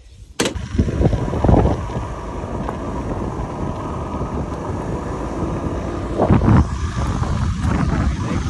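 Wind rushing over the microphone on a moving Suzuki scooter, with the scooter's running noise beneath. It starts abruptly about half a second in and swells louder twice.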